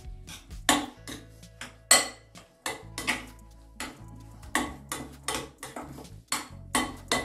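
Utensil clinking and scraping against a glass mixing bowl as a broccoli, egg and mozzarella mixture is stirred, in irregular sharp clinks, some leaving a short ring from the glass.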